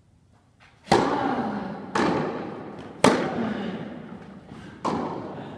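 Tennis serve and rally on an indoor court: the ball is struck by rackets and bounces, giving four sharp pops one to two seconds apart. Each pop has a long echo from the large hall.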